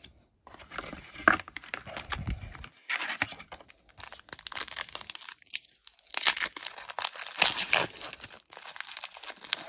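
Foil wrapper of a trading-card pack crinkling and tearing as it is handled and ripped open, in irregular crackly bursts.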